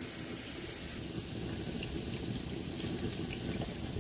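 Milk poured from a carton into a hot pan of butter-and-flour roux and stirred, with a steady sizzle as the liquid cooks.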